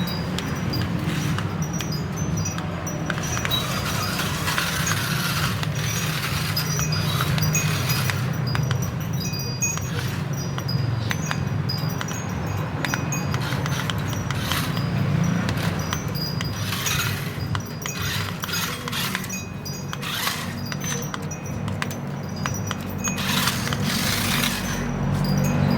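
Light, high-pitched chime tinkling in short scattered notes over a steady low hum, with frequent small clicks.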